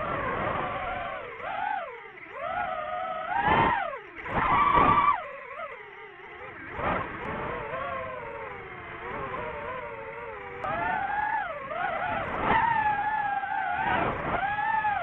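DJI FPV drone's motors and propellers whining, the pitch sliding up and down with throttle changes, with several brief loud surges as the drone is punched and manoeuvred.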